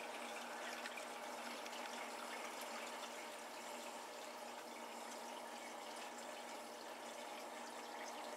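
Saltwater aquarium water circulating: a steady trickling, splashing flow, with a faint steady hum underneath.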